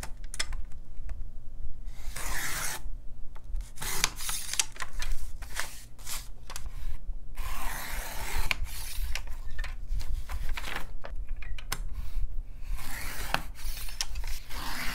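Scissors cutting through a paper pamphlet, in several stretches of a second or two, with sharp clicks of the blades and paper handling between the cuts.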